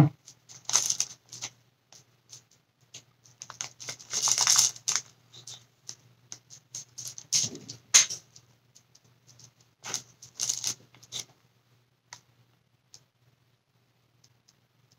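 Small shell pieces clicking against each other and a plastic bag rustling as the shells are picked out one at a time, in irregular clusters of light clicks that thin out to a few faint ticks near the end.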